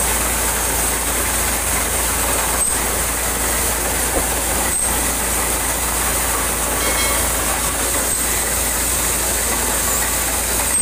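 Borewell drilling rig running on compressed air from an air compressor: a steady, loud mix of machine noise and rushing air that does not let up.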